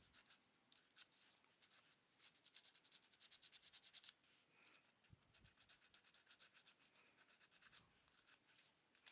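Faint hand-sanding of a turned wooden piece: rapid back-and-forth rubbing strokes in two runs, with a short pause about four seconds in.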